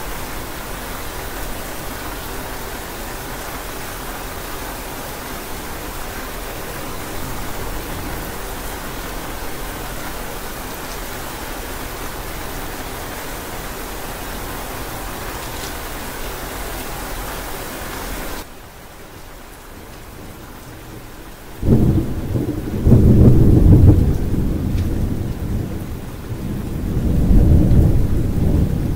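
Steady hiss of rain that cuts off abruptly about two-thirds of the way through to softer rain. A few seconds later, loud rolls of thunder rumble over the rain, swelling twice.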